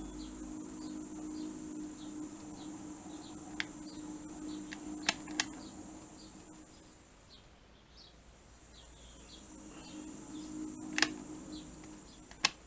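Milling machine spindle turning slowly under power, driving a spiral-flute machine tap to cut an M5 thread: a low steady hum with a faint high whine and small repeated chirps. The hum dies away about seven seconds in and comes back about ten seconds in, with a few sharp clicks.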